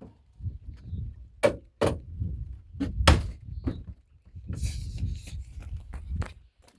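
Storm door being worked in its frame: a few sharp knocks and a scraping rub as it is pushed and swung, the door still binding at the top.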